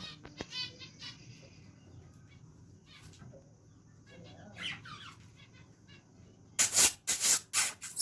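Budgerigars settling to roost, giving a few short warbling chirps, then near the end a quick run of loud rustling wing flaps.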